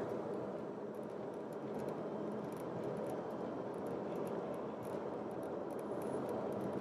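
Steady cabin noise of a Ferrari Roma cruising gently on a paved road: an even road and tyre rumble with a low engine hum underneath.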